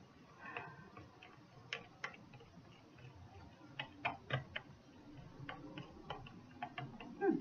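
A small utensil stirring soap batter in a plastic cup, clicking against the cup's side in irregular light clicks, loudest a little before the end.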